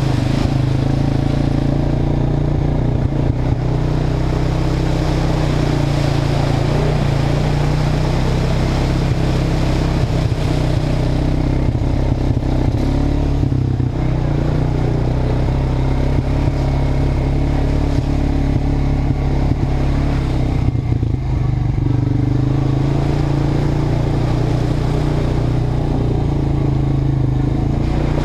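ATV engine running steadily under way, a continuous low hum, briefly easing off about halfway through and again about three-quarters of the way through.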